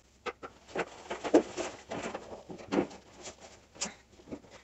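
Rustling of fabric and light knocks as laundry is handled and pulled out of a clothes dryer, a scatter of short, irregular sounds.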